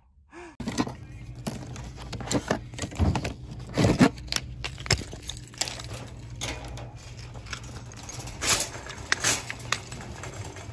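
Metal wire shopping cart rattling and clanking as it is pushed, with scattered knocks, over a steady low hum. The loudest knocks come about three to four seconds in and again near nine seconds.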